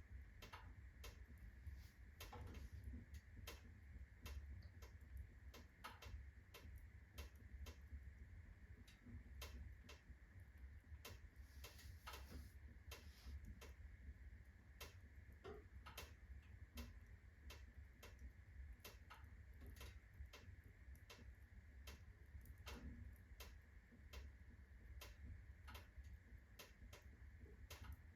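Unsplit birch rounds burning at full blaze in a fireplace: irregular sharp crackles and pops, several a second, over a faint low rumble.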